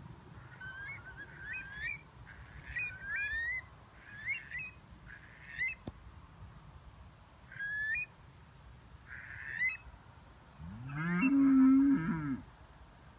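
A bird gives a series of short, high calls that glide up and down, about one a second. Near the end a cow moos once, a long, low moo that rises and falls and is much louder than the calls.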